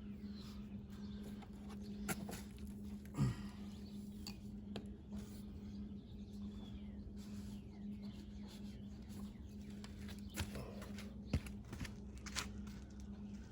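Scattered light clicks and knocks of work on the motorcycle over a steady low hum, with one louder low thud about three seconds in. Faint bird chirps are heard now and then.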